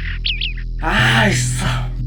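Background music with a steady bass line, with brief chirps near the start and a louder, noisy burst about a second in.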